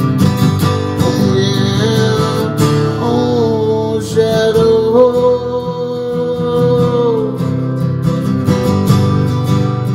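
Acoustic guitar strumming steadily, with wordless singing: one long held note that wavers slightly in pitch, from about a second in until about seven seconds in.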